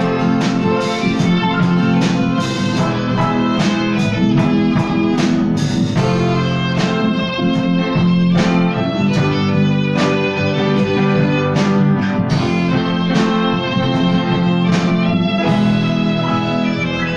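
Violin playing a melody over a rhythmic plucked accompaniment, with chords struck at an even beat.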